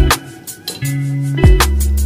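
Background music with a beat: drum hits over sustained bass notes and plucked-string tones.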